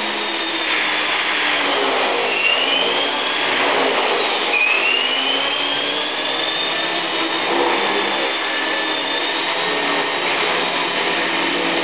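450-size electric RC helicopter's motor and main rotor whirring steadily under power, the motor whine rising in pitch twice, about two and four and a half seconds in.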